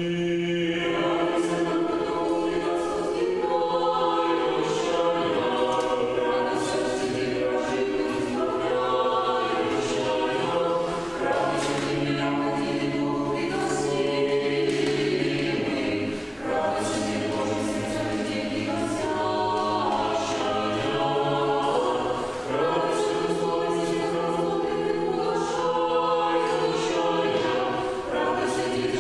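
Unaccompanied church choir singing Orthodox liturgical chant in several voice parts, with a brief break between phrases about two thirds of the way through and a shorter one a few seconds later.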